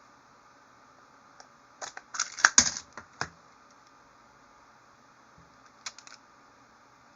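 Plastic magnetic building tiles clicking and clacking together as they are handled: a single click, then a quick run of sharp clacks about two to three seconds in, and a few more clicks near the end.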